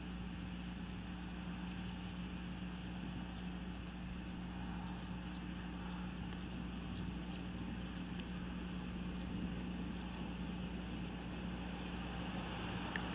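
Steady low hum with a hiss, unchanging throughout: the nest camera's outdoor microphone, with no eagle calls. There is a faint tick near the end.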